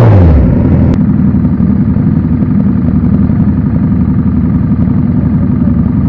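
Suzuki Hayabusa's inline-four engine idling steadily through its exhaust, a deep, low, even sound.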